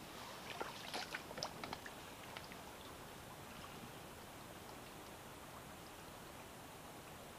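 Faint, steady rush of a brook's flowing water, with a few light clicks and ticks in the first two seconds.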